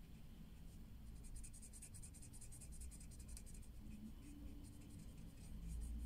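Faint scratching of a black felt-tip marker on paper in many quick, short strokes, as it colours in a small shape. The strokes start about a second in, pause briefly past the middle, then pick up again.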